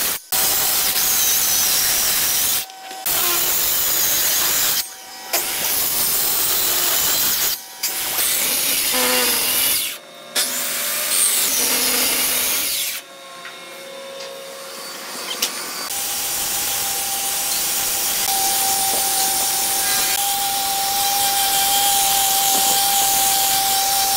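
Handheld electric circular saw cutting shallow grooves into a wooden panel, its loud cutting noise breaking off abruptly several times. For the last third, an electric orbital sander runs over a board with a steady whine that slowly grows louder.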